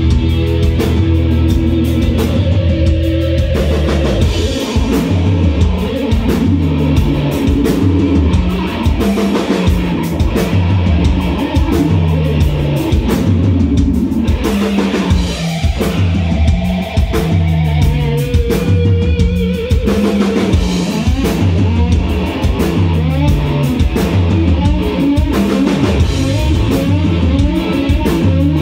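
Rock band playing live: keyboard, electric guitar and drum kit. Held chords for the first few seconds, then a stepping bass line under steady drums.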